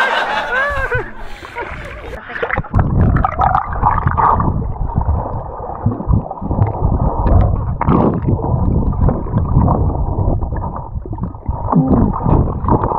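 Splashing at the water's surface with a brief voice, then about two and a half seconds in the sound turns to a dull, muffled underwater rumble and gurgling of water and bubbles rushing past a submerged action camera as a swimmer strokes.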